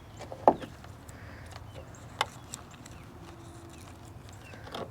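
A few scattered sharp knocks and clicks from a railroad spike and its tangled fishing line being handled.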